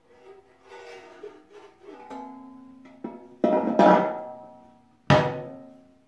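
Cast-aluminium Holley oil pan knocking against an LS 5.3 engine block several times as it is lowered and seated for a dry fit. The two loudest knocks, about three and a half and five seconds in, each ring on with a metallic tone that dies away over about a second.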